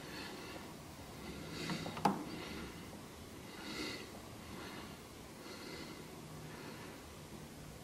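Faint breathing through the nose close to the microphone, a soft breath about every two seconds, with a single sharp click about two seconds in.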